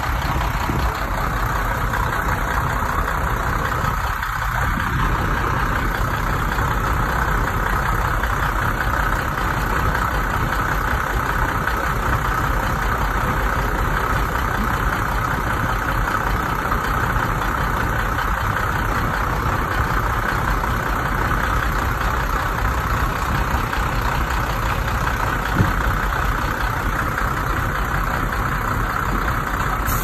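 Komatsu D31P bulldozer's diesel engine running steadily, an unbroken mechanical drone, with one brief click about three quarters of the way through.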